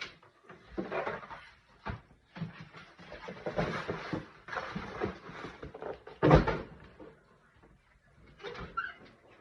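Irregular rustling and scraping of things being handled, with one sharp knock a little after six seconds, the loudest sound.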